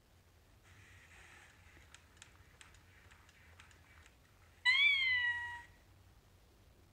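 Sony aibo ERS-1000 robot dog's synthetic cat meow from its speaker: one meow, rising then falling in pitch and about a second long, a little past halfway through. Before it there is a faint hiss and a run of light clicks.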